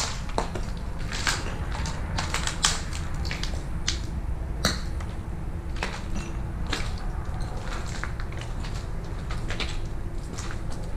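Footsteps crunching and crackling over a floor strewn with dry leaves and broken debris: irregular sharp clicks and crunches, closer together in the first few seconds and sparser after about five seconds.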